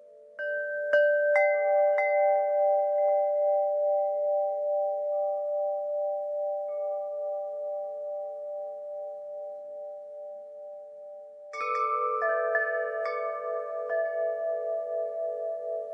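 Wind chimes: several chimes struck in quick succession, their tones ringing and slowly fading, then a second flurry of strikes near the end whose notes waver as they ring.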